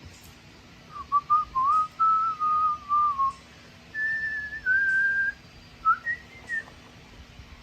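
A person whistling a tune in three short, slightly wavering phrases, the later ones higher in pitch.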